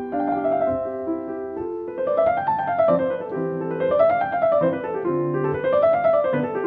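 Piano music playing, with phrases of notes that climb and fall again over and over from about two seconds in.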